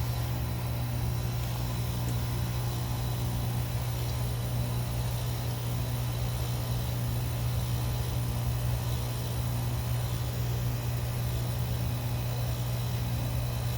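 Outdoor unit of a 2020 Tempstar 3-ton heat pump running in its defrost cycle: a steady, even low compressor hum.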